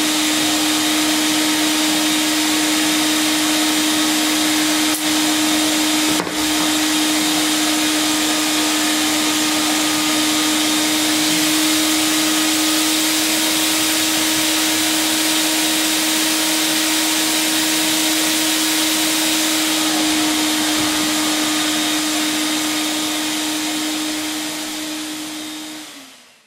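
Vacuum cleaner running steadily, a strong hum over a rushing hiss of air, while its wand and floor-brush nozzle are run over a cat's fur. It fades out near the end.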